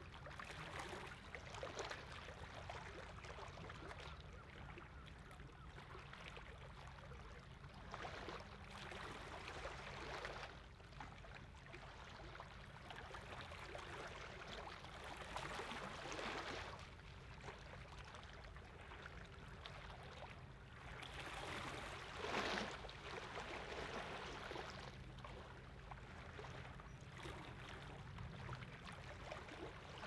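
Small waves lapping and washing against the shore in irregular surges every few seconds, one stronger surge a little over two-thirds of the way through, over a steady low hum from ship engines on the fjord.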